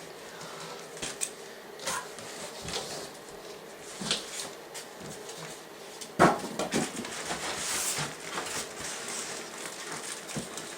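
Packaging being handled during unboxing: rustling with scattered light clicks and knocks, and one louder sharp knock a little past halfway.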